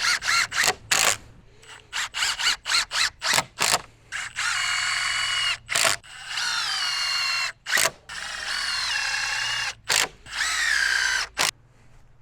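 Power drill driving screws down through wooden strips into form boards. A series of short bursts comes first, then four longer runs of motor whine whose pitch drops as each screw pulls in and seats.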